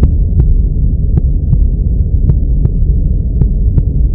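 Background soundtrack of deep, muffled bass with a sharp tick about two and a half times a second, in a steady beat.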